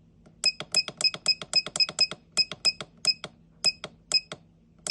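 Belluna air conditioner's control panel beeping at each quick press of the plus button, about fifteen short beeps at roughly four a second, as the last digit of the unlock code is stepped round to the letter D.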